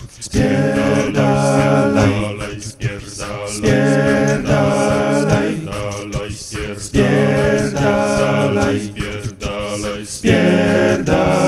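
A cappella singing: unaccompanied voices in four sung phrases of about three seconds each, with short breaks between them.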